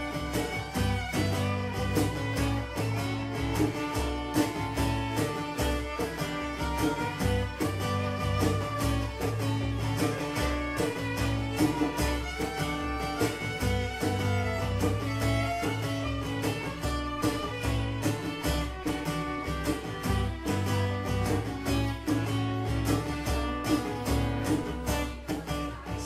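Instrumental break in a live acoustic song: violin playing over steadily strummed acoustic guitar, with no singing.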